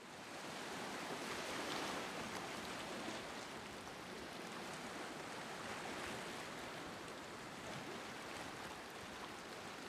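Sea surf, waves breaking and rushing on a shore as a steady rush of noise that fades in at the start.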